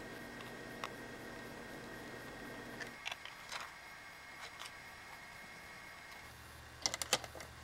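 Faint clicks and taps of a screwdriver and the charger's plastic case being handled as the back cover is screwed on, with a short cluster of sharper clicks near the end, over low room hiss.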